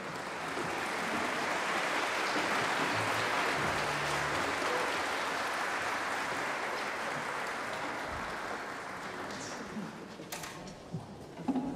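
Concert audience applauding, a steady clatter of clapping that thins out and dies away near the end, with one sharp click just before it stops.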